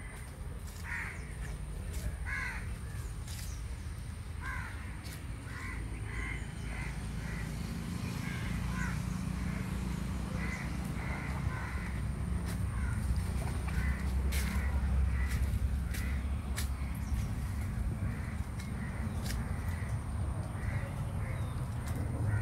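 Crows cawing repeatedly in short calls, over a low rumble that grows louder about a third of the way in.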